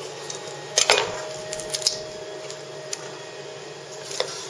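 Knife cutting through the joint between a raw chicken thigh and drumstick on a cutting board. About a second in there is a sharp knock that leaves a faint ringing tone for a few seconds, and a few lighter clicks follow.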